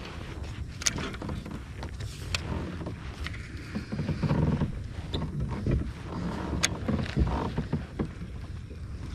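Handling noise aboard a fishing kayak: a few sharp clicks and knocks over a low, uneven rumble.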